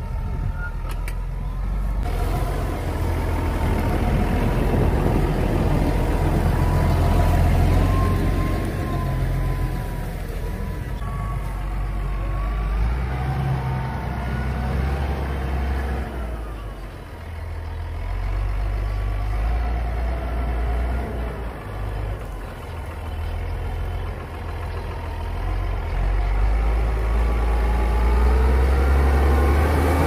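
Diesel farm tractor engine running steadily at work. Its level swells and eases, with a brief dip about halfway and louder running near the end.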